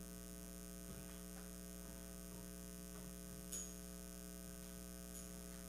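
Steady electrical mains hum in the sound system, with one faint tick about three and a half seconds in.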